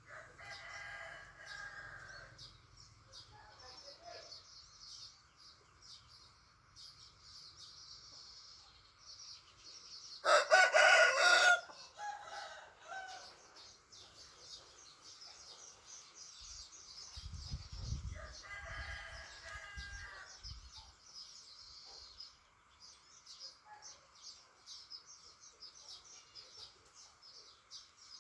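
Chickens on a farm: a rooster crows loudly once, about ten seconds in, with weaker calls near the start and again around eighteen seconds. Steady high chirping runs underneath, and a low rumble comes through around seventeen to twenty seconds.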